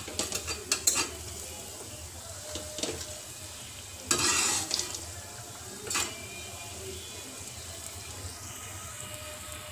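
Urad dal bhallas deep-frying in oil in a kadhai, with a steady faint sizzle. A steel slotted spoon clicks against the pan several times in the first second, then stirs with a louder scraping rush about four seconds in and a shorter one near six seconds.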